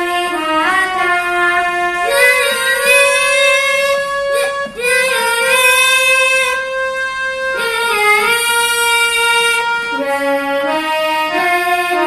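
Music: a melody of long held notes, each lasting a few seconds, several of them sliding up into pitch as they start.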